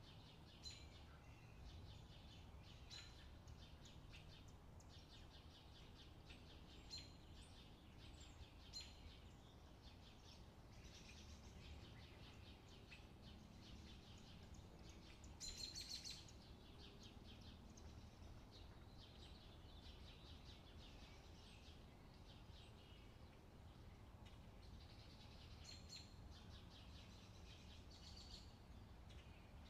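Near silence: faint bird chirping over a low steady hum, with a slightly louder run of chirps about halfway through.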